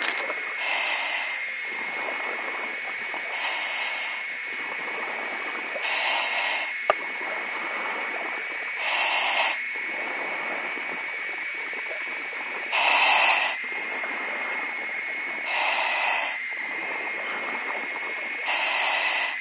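A diver's breathing inside a diving helmet: an exhalation rush about every three seconds, seven in all, over a steady high whine. The crackle of an underwater exothermic cutting torch cuts off just as it begins, and there is one sharp click about seven seconds in.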